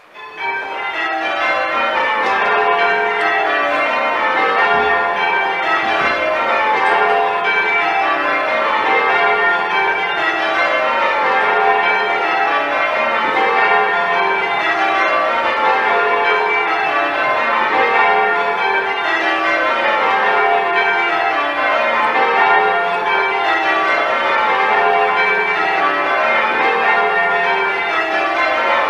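Ring of ten church bells (a 1928 Gillett & Johnston eight with two Taylor trebles) being rung full circle for change ringing, heard from the ringing chamber below. The bells start about half a second in, and every row of strikes runs down the scale from treble to tenor in an even, repeating rhythm.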